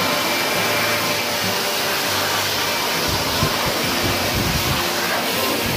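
Electric blower running steadily, blowing air into a split-type air conditioner's indoor unit to dry it after washing. Irregular low bumps and rumbles join in from about halfway through.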